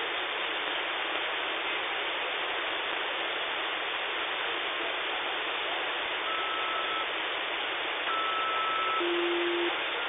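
Static hiss from a shortwave radio receiver in upper sideband on the 11-metre CB band, with no station on the frequency. A short steady whistle comes about six seconds in and again about eight seconds in, then a brief lower tone near the end.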